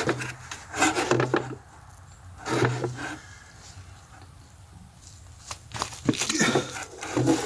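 Intermittent scraping and knocking of metal parts as a hydraulic cylinder is worked apart by hand, in several separate bursts.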